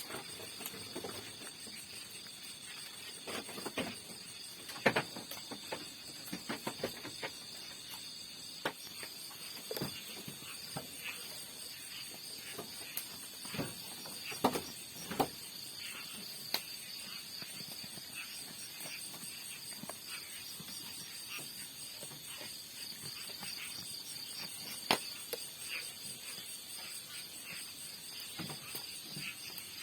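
Steady chorus of insects, like crickets, chirring high and unbroken, with scattered sharp clicks and knocks over it, a handful much louder than the rest.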